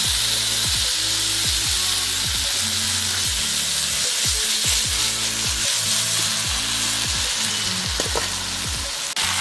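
Beef steaks sizzling steadily as they fry in melted butter and oil in a hot pan, with background music with a low beat underneath.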